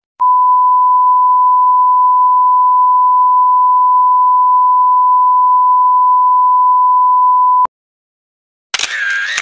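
A steady, pure beep tone at one unchanging pitch, the classic censor-bleep sound effect, held for about seven and a half seconds before cutting off suddenly. Near the end a short, harsh burst of another sound effect starts.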